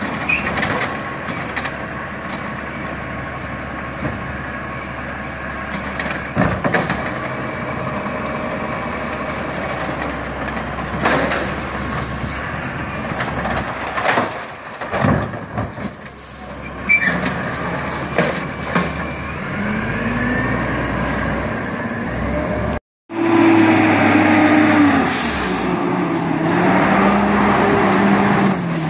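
Automated side-loader garbage truck running while its hydraulic arm lifts a wheeled cart and empties it, with several clanks and knocks from the cart and arm. After a break near the end, a second side-loader garbage truck's engine revs up and down.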